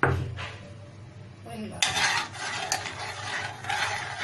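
A short knock at the start, then a spoon stirring and scraping inside an aluminium pot of hot whey, with small clicks of the spoon against the pot from about two seconds in.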